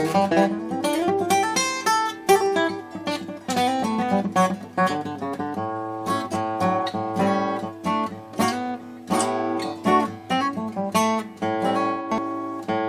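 Washburn Timbrewood WD-48S dreadnought acoustic guitar, newly fitted with a bone saddle and set up, played fingerstyle: a steady run of plucked single notes and ringing chords.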